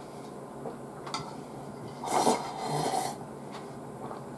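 Slurping nameko miso soup from a bowl: one noisy slurp about two seconds in, followed by a softer one, with a light click about a second in.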